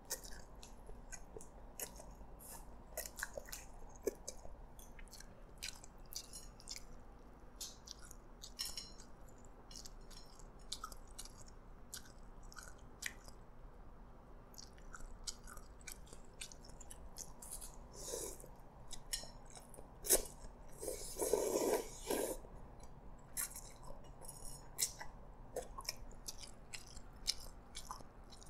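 Close-up eating of Hokkien prawn noodles: wet chewing with many small mouth clicks and smacks, and one longer, louder slurp about three quarters of the way through.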